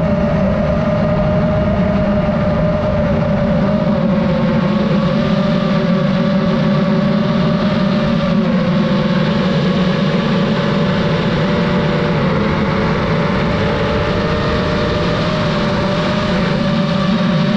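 DJI FPV drone's motors and propellers whining steadily in flight over a heavy rush of air, the pitch wavering slightly as the throttle changes.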